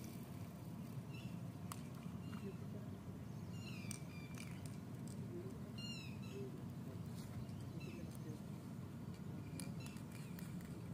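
Bird calls: a few short high chirps and gliding whistles, most between about one and seven seconds in, over a steady low rumble.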